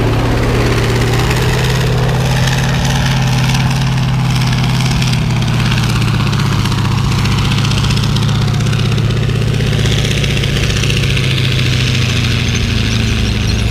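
Large vehicle engine idling steadily close by, an even low hum that holds at one speed throughout.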